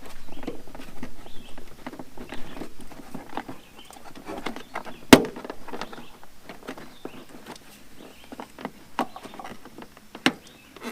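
Plastic engine-bay trim covers being handled and loosely fitted back in place: scattered clicks, knocks and rattles, with one sharp click about five seconds in.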